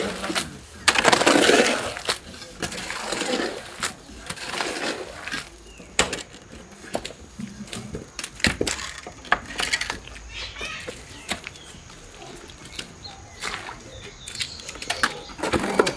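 Scattered sharp knocks and scrapes of a shovel and masonry buckets being handled on a building site, with people talking briefly in the first few seconds.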